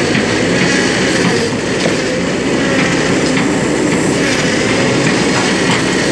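Kobelco SK200-8 excavator travelling on its steel crawler tracks: the diesel engine running under load while the track links clank and squeak steadily.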